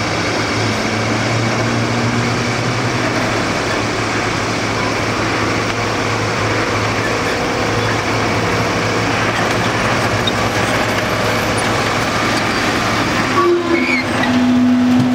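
Diesel engines of a hydraulic excavator and a ten-wheel dump truck running steadily while the excavator works a pile of crushed rock. Near the end, rock is dumped from the bucket into the steel truck bed with a few knocks, and a steady horn tone starts.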